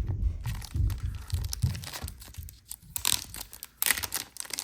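Packaging crinkling and rustling as cards are taken out of the box and handled, with dull handling bumps in the first couple of seconds and louder crinkling bursts about three and four seconds in.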